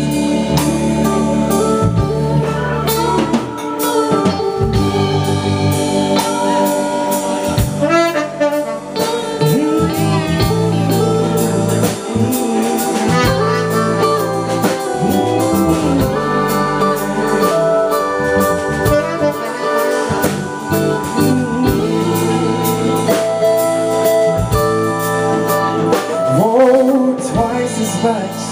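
Live band playing: drum kit and electric bass under a singer's voice.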